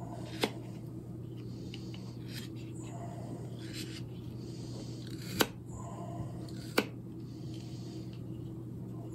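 A knife carving seasoned ash wood: a few short scraping cuts, with three sharp clicks, one about half a second in and two more past the middle.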